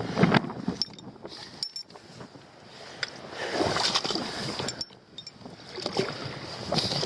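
Wind gusting over the microphone on an open shore, swelling and dropping three times, with a few faint clinks between the gusts.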